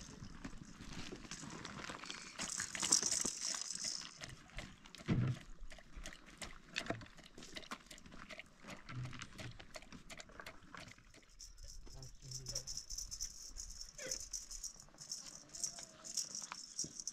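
Irregular knocking and clatter of a wooden stick worked inside a plastic container. A high rasping hiss joins in about two seconds in and again from the middle onward.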